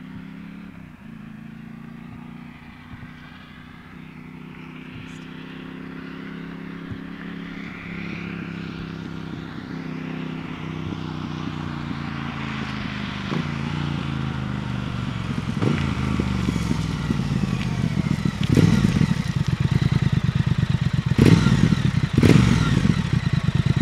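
Triumph Thruxton RS 1200cc parallel-twin engine through its stock, road-legal exhaust, growing steadily louder as the bike rides up close. Three sharp throttle blips come in the last five seconds.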